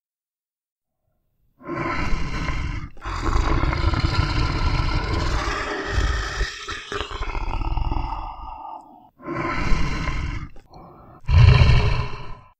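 Tiger roaring and growling in a series of calls, starting about a second and a half in: a short roar, a long growl of about six seconds, then two more short roars, the last the loudest.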